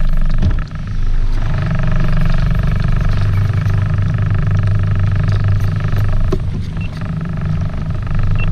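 Boat engine running steadily under way, with a brief drop in level about a second in before it settles back.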